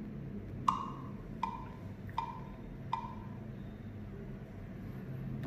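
GarageBand metronome count-in playing from an iPad's speaker: four evenly spaced clicks about three quarters of a second apart, each with a short pitched ring.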